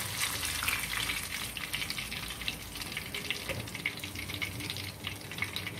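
Batter-coated banana pieces deep-frying in hot oil in a small pan, with a steady sizzle full of fine crackles.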